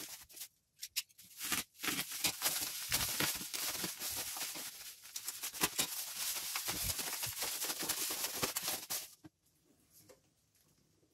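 Bubble-wrap packaging crinkling and crackling as it is handled and pulled off a cardboard box, a dense run of small crackles that stops about nine seconds in.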